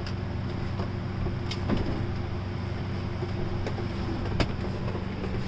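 A cooler-refrigerator being pushed and wedged into a cut-out in wooden cabinetry, bumping and scraping against the edges, with a sharper knock about four seconds in. Under it runs a steady low hum.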